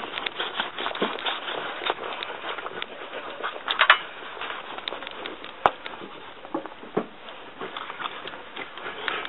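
Deck brush scrubbing over a large dog's coat and the concrete floor in irregular rubbing strokes. There is a sharp knock a little past the middle.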